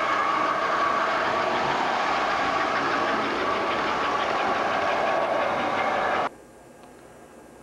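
American Flyer S-gauge model train running on the layout's track, a steady whirring and rattling with a constant whine in it. It cuts off abruptly about six seconds in, leaving only a faint hum.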